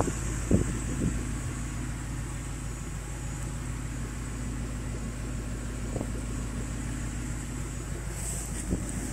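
The 5.0-litre (302) V8 of an SMS 302 Ford Mustang idling steadily with a low rumble. There is a single knock about half a second in.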